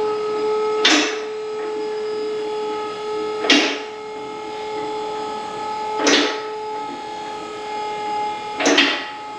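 MaxJax two-post car lift lowering a car: a steady whine with a short hissing whoosh about every two and a half seconds, four in all.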